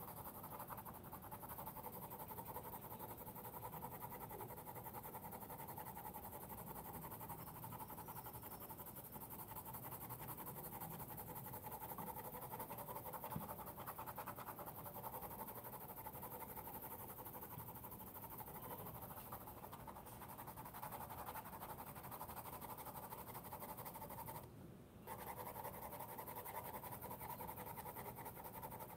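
Faint, steady scratching of a yellow Navneet Youva colored pencil shading back and forth with light pressure on thick, textured sketchbook paper, over a low background hiss. The scratching breaks off briefly about four seconds before the end.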